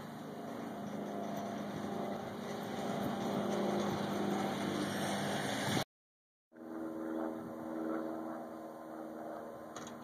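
A machine engine running steadily, growing a little louder. It is cut off abruptly about six seconds in, and after a half-second gap an engine runs on again at a different pitch.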